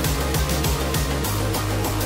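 Background music with a steady, driving beat and a deep bass line.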